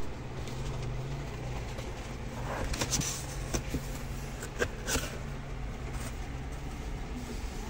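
A steady low hum, with a few brief rustles and clicks about three to five seconds in.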